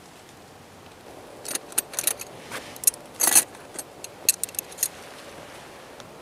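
Hooked metal wire tent stakes clinking and jangling against each other as they are handled and set down: a run of sharp metallic clinks over about three seconds, loudest near the middle.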